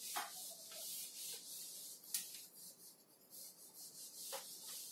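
Board eraser wiped in repeated strokes across a whiteboard, a faint scratchy rubbing hiss.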